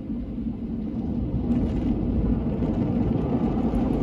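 Rotating brushes of a drive-through car wash machine scrubbing over the car, heard from inside the cabin: a low, dense rush that grows steadily louder, with finer water spatter on the glass joining about a second and a half in.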